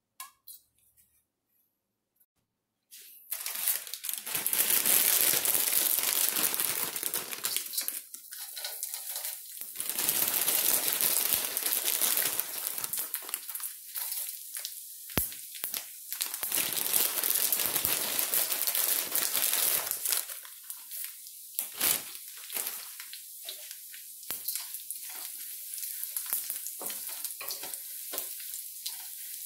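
Dried anchovies sizzling in hot olive oil in a steel wok: loud hissing surges as handfuls drop in, settling to a quieter crackle as they are stirred with a wooden spatula.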